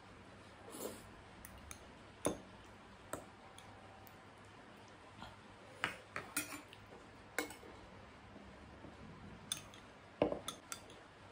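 Metal spoon and fork clinking and scraping against bowls while eating soupy dumplings: a scatter of short, sharp clinks, busiest about six seconds in and again near the end.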